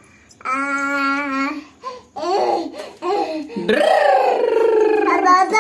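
Toddler imitating a motorbike with his voice: a steady held note, a few short broken syllables, then a long drawn-out note.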